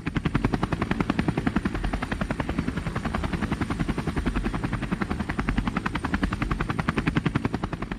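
Sound effect of a propeller aircraft's engine and spinning propeller: a steady, rapid, even chopping pulse.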